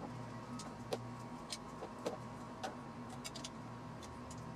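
Scattered light metallic clicks, roughly one every half second, from a hand wrench working the cover bolts of a Briggs & Stratton Intek V-twin engine, over a low steady hum.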